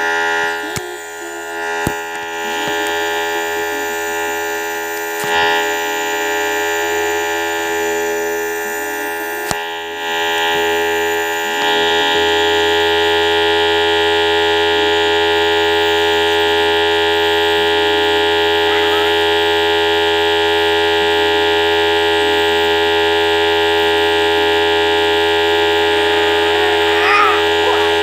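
Compressor nebulizer running with a steady buzzing hum during an inhalation treatment. It settles and gets a little louder about twelve seconds in.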